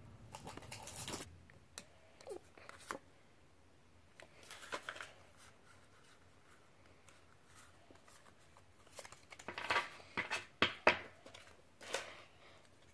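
Pokémon booster pack's foil wrapper torn open, then the trading cards handled and slid through the fingers. There are scattered light rustles and several sharp card snaps near the end.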